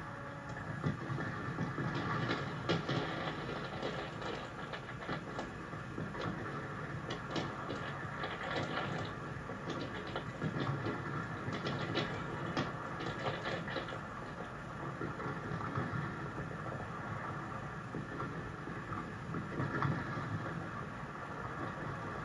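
Fireworks display heard from a distance: scattered pops and dense crackling, busiest in the first half, over a steady low rumble.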